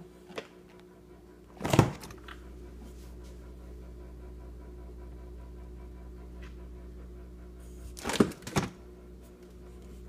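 LG LFX31925ST French-door refrigerator running with its ice maker switched off: a steady hum of several low tones that gets a little louder after a loud thunk about two seconds in. Two more knocks come close together near the end.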